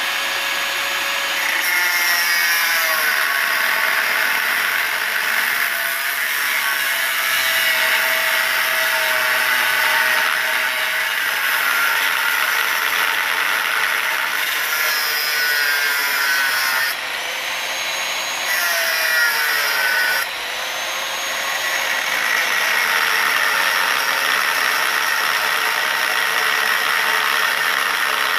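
Power tool cutting into the metal of an oxygen tank: a loud, steady grinding with a whine that wavers in pitch. It eases off briefly twice about two-thirds of the way through.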